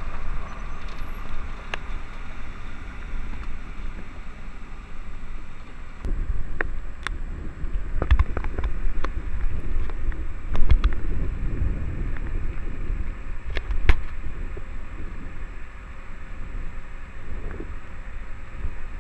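Gusty wind buffeting the camera's microphone, a deep rumble that swells and eases, with scattered sharp ticks, most of them between about six and fourteen seconds in.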